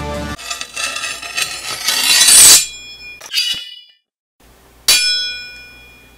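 Logo sting sound effects: music cuts off just after the start, a swell rises to a peak and stops about two and a half seconds in, then two metallic clangs ring out and fade, the second and louder about five seconds in.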